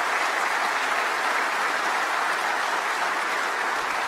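Audience applauding: many hands clapping in a steady, even wash of sound.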